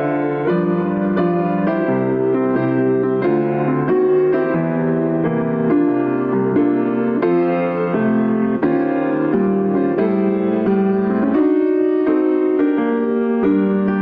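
Instrumental piano music, with new notes and chords struck about twice a second.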